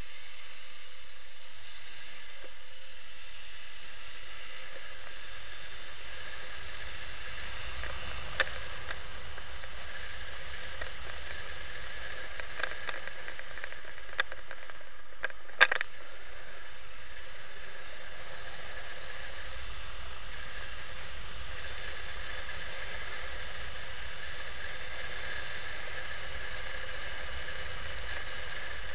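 Motorcycle riding on a town street, picked up by a camera mounted on the bike as a steady hiss over a low rumble. A few short knocks come through, the loudest about halfway.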